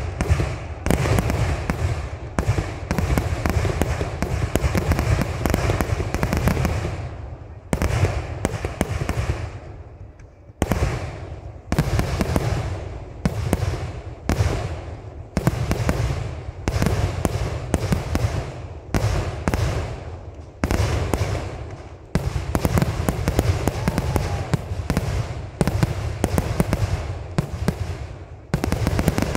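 Kerala temple-festival fireworks (vedikettu): a dense, rapid string of explosions, blast after blast. It dies away about eight seconds in, then starts again abruptly with a loud burst about two and a half seconds later and keeps going.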